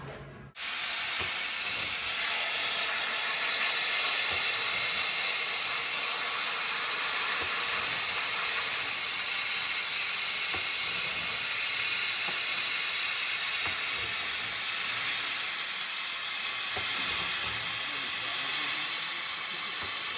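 Compressed air hissing steadily through a VP4 pneumatic pump rig, with a thin high whine; it starts abruptly about half a second in.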